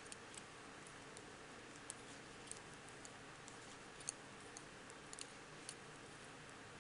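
Faint, irregular light clicks of aluminium double-pointed knitting needles tapping against each other as stitches are knitted, the sharpest about four seconds in, over a low steady hiss.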